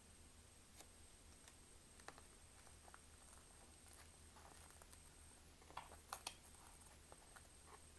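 Near silence with a few faint light clicks and a soft rustle from fingers handling a small clear plastic case and lifting a tiny flight-controller board out of it; the clicks come in a small cluster about six seconds in.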